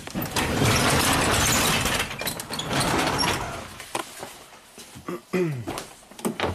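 Overhead sectional garage door being raised, rumbling and rattling along its tracks for about three seconds. Then a few short knocks and clicks.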